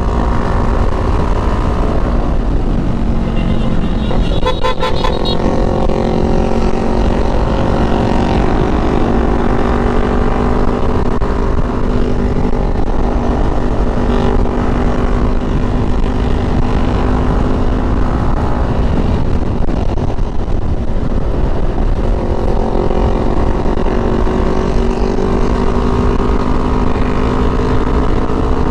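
Motorcycle engine running at a steady cruise, with wind noise buffeting the rider's microphone. About four to five seconds in, a vehicle horn toots several times in quick succession.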